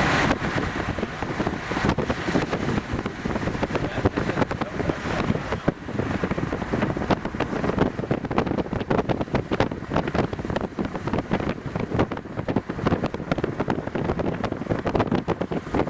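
Gusty wind buffeting the camera microphone: an uneven rumbling rush with frequent sharp gusts that never lets up.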